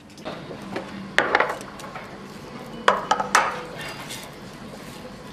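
Crockery and cutlery clinking and clattering, in two clusters of sharp clinks about a second in and again about three seconds in.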